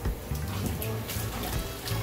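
Background music, with water starting to pour from a pipe outlet and splash onto a pile of rocks near the end as a newly built aquarium waterfall is turned on.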